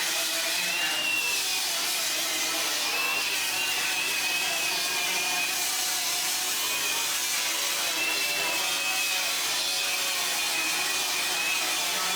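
Power tool running steadily without a break, with a high whine that wavers slightly in pitch.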